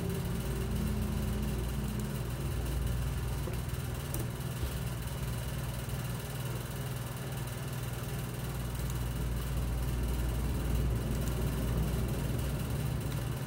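A machine running with a steady low hum, unchanging throughout.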